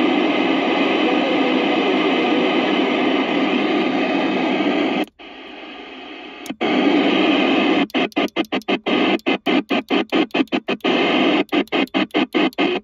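Static hiss from a CRE 8900 CB radio's speaker with no station coming through. About five seconds in the hiss drops away for about a second and a half as the mode switch is turned. It then returns and is chopped by a rapid string of brief gaps, about five a second, as the channel knob is stepped upward.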